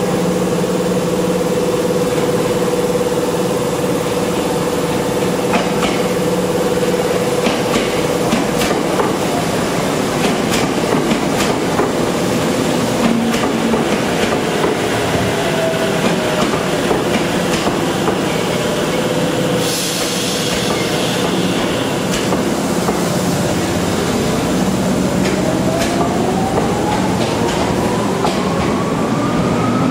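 Tokyo Metro 08 series electric train pulling slowly into a station: wheels clicking over rail joints under the whine of its traction motors, which falls in pitch as it slows. There is a brief hiss about two-thirds through, and a rising electrical whine near the end.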